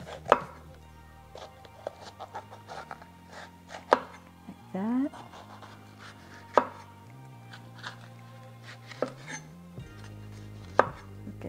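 Chef's knife cutting a green bell pepper on a wooden cutting board: five sharp knocks of the blade meeting the board, one every two to three seconds, with softer cutting ticks between. Quiet background music runs underneath.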